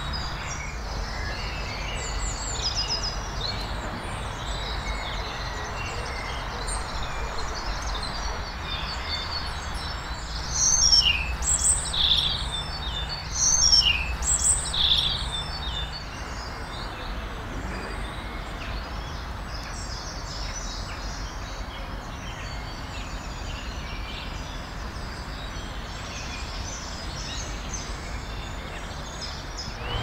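Garden songbirds chirping and singing, with a louder run of quick sweeping song notes between about 11 and 15 seconds in, over a steady background hiss and rumble.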